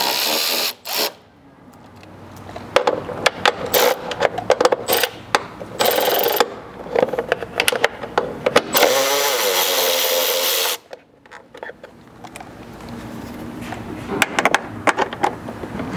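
Cordless electric ratchet with a 10 mm socket spinning screws out, its motor running in short bursts and once in a steady run of about two seconds, with pauses between screws.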